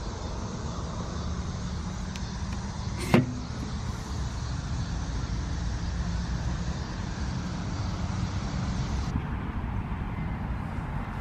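Steady rumble of distant road traffic outdoors, with one sharp click about three seconds in.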